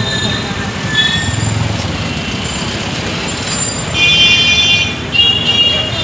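Street traffic noise: a steady hiss with a low rumble. Two short, steady high tones sound about four and five seconds in.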